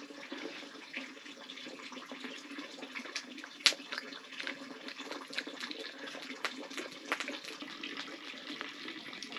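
Steady rain falling, with scattered small clicks and one sharp click a little after three and a half seconds in.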